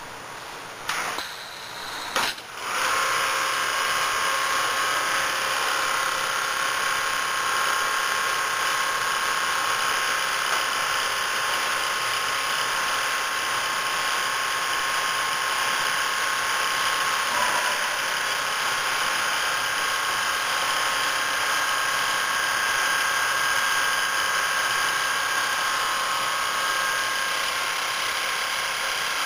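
Double-needle quilting machine: two clicks, then about two and a half seconds in it starts up and runs steadily as it sews, a continuous motor whine.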